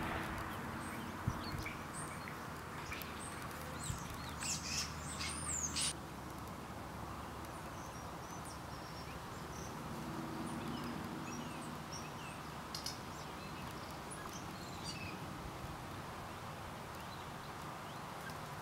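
Birds chirping: a cluster of quick high calls with one rising-and-falling whistle about four to six seconds in, then a few fainter chirps, over a steady background hiss.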